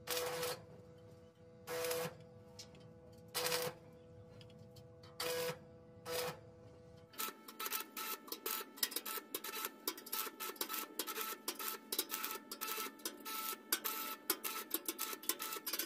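Electric welding arc: short crackling bursts, about half a second each, over a steady hum, then from about seven seconds in a dense, continuous crackle.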